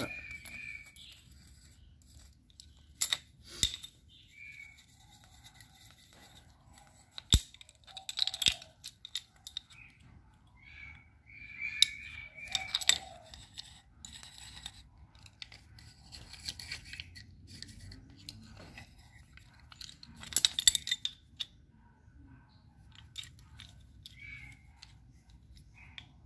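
Handling of a small metal C-clamp: scattered clicks, scrapes and knocks, with a few sharper knocks spread through.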